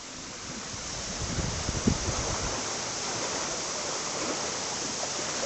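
Steady rush of moving seawater that grows louder over the first second or so, with wind gusts buffeting the microphone low down.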